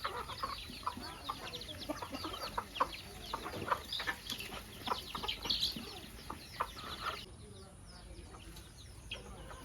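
Chickens clucking, a dense stream of short overlapping calls that drops away suddenly about seven seconds in, leaving faint background.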